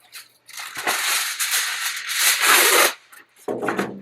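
Aluminium foil crinkling and rustling as it is handled and pressed into a pan, loud for about two and a half seconds, then a shorter, duller rustle near the end.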